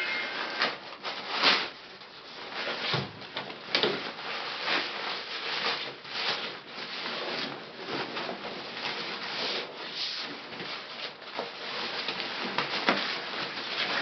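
A camera sling bag being handled: irregular rustling, rubbing and light knocks.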